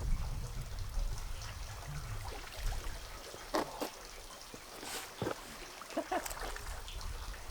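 Water running and trickling, broken by a few short splashes a little past the middle.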